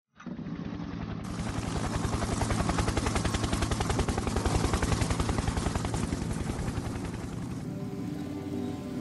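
Edited-in outro soundtrack: a rapid, even pulsing over a low steady hum that starts suddenly out of silence. Near the end it thins into a quieter drone of held tones.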